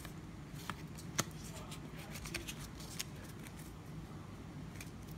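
Pokémon trading cards being handled and sorted in the hands: faint, scattered rustles and flicks of card stock, with one sharper click about a second in.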